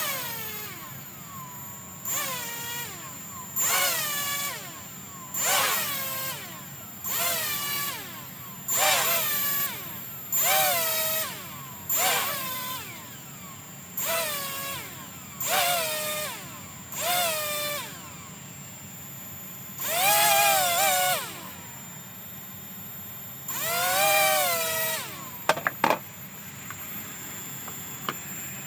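Hubsan H122D X4 Storm micro quadcopter's motors whining up and falling away in about a dozen short throttle bursts, two longer ones near the end, followed by a few sharp clicks. The owner puts this down to a bad motor that clicks and is slow to spin up.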